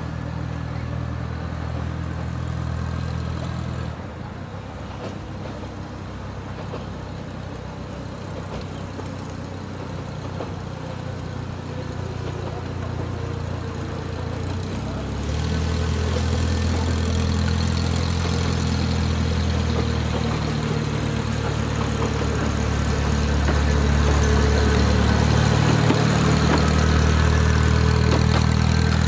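Diesel engine of a small 15-inch gauge permanent-way locomotive running steadily as it hauls a van along the track. It grows louder in the second half, loudest near the end as the locomotive passes close, with a steady higher whine over the engine drone.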